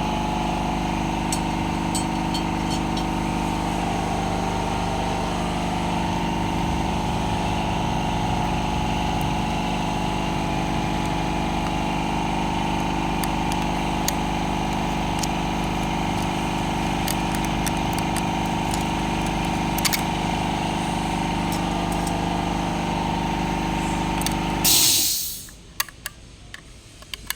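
A motor running steadily with a humming, even drone; about 25 seconds in it ends with a brief sharp hiss and falls quiet, leaving a few faint clicks.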